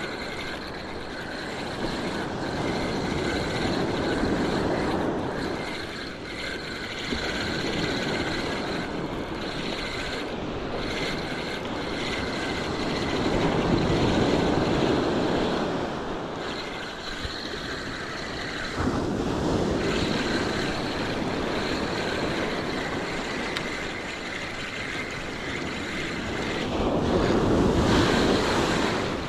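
Surf breaking and washing up the beach in repeated swells, loudest about halfway through and near the end, with wind buffeting the microphone. Under it a spinning reel is cranked as a fish is reeled in, a faint high whine that pauses now and then.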